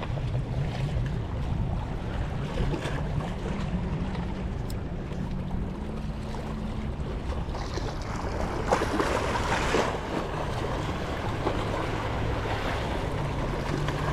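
Boat engine running steadily as a low drone, with wind noise on the microphone. About nine seconds in there is a brief rustle and clatter.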